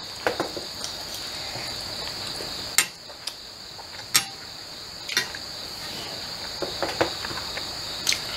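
Crickets chirring steadily, with about six sharp clicks of a spoon on a plate.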